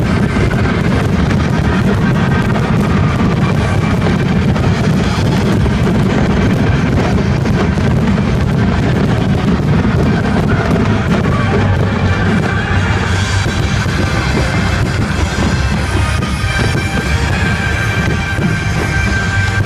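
Loud rock music with a drum kit and guitar, playing without a break.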